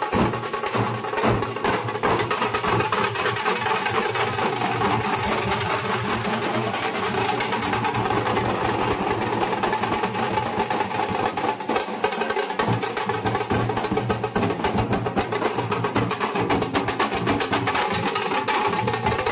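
Nashik dhol ensemble playing: large barrel dhols beaten with sticks under a dense, fast rattle of smaller stick-played drums, a steady loud rhythm throughout.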